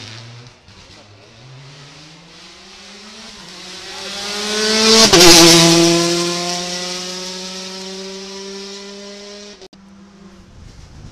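Rally car engine at full throttle approaching, its note rising in pitch and growing louder, passing close about five seconds in with a sudden drop in pitch. It then pulls away on a long held note that fades and cuts off abruptly near the end.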